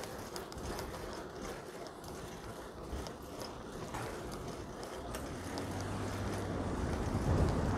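Fixed-gear bicycle riding: steady rolling noise from tyres and drivetrain with scattered light clicks, growing louder near the end.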